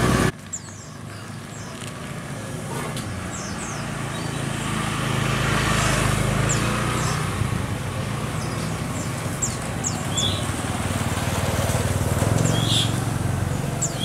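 Engine rumble of passing road traffic, swelling about halfway and again near the end, after the sound drops away suddenly a moment in. Short, high bird chirps come and go throughout.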